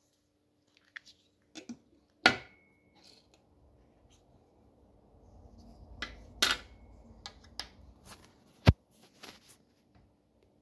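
Plastic Mitsubishi key fob shell being prised open with a small metal blade: irregular clicks and snaps as the clips give, the loudest snap about two seconds in, with handling rustle between. A sharp knock comes near the end.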